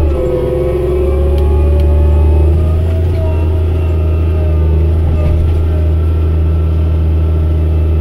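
Challenger MT765 tracked tractor's diesel engine running steadily, heard from inside the cab as a loud low drone, with a whine above it that dips and then rises slightly in pitch as the tractor moves under joystick control.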